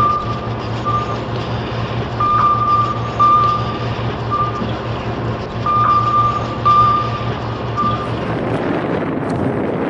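Heavy vehicle's engine running with its reversing alarm beeping about once a second; the beeping stops about eight seconds in.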